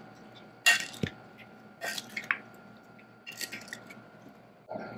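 A spoon tossing juicy chopped cucumber, mango, tomato and pineapple in a glass bowl: a few short wet squishes and scrapes.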